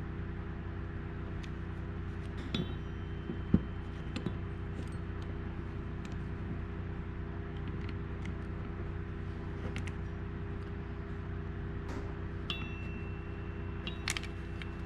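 Scattered light metallic clinks and taps of hand tools on a bearing separator as its nuts are run down with a wrench, two of them ringing briefly. The sharpest tap comes about three and a half seconds in, over a steady low hum.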